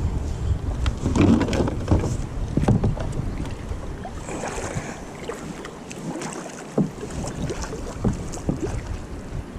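Kayak on a moving river: water against the hull and wind rumbling on the microphone, with scattered knocks and bumps that are loudest in the first two seconds.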